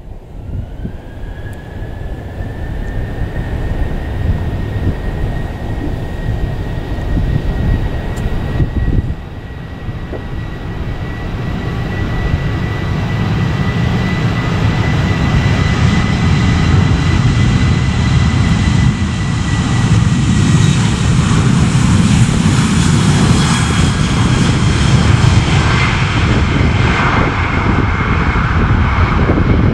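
A Boeing 737-700's twin CFM56-7B turbofans spool up for takeoff. A whine rises in pitch over the first second or two and then holds steady, beneath a deep rumble and hiss that grow steadily louder as the jet accelerates down the runway and passes.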